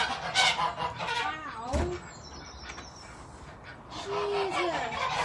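Domestic geese honking from the pen, with a dull thump of the wooden pen door being shut about two seconds in and more loud honking near the end.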